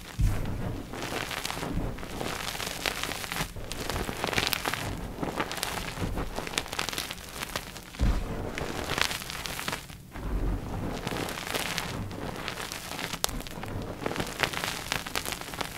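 Dip-dyed gym chalk blocks being crushed, a continuing dry crunching and crackling with many small sharp cracks. Heavier thuds come near the start and about eight seconds in.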